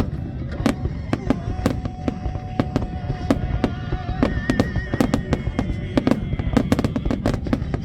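Fireworks display: aerial shells bursting in quick succession, sharp bangs and crackles that come faster near the end. Music with long held notes plays beneath the explosions.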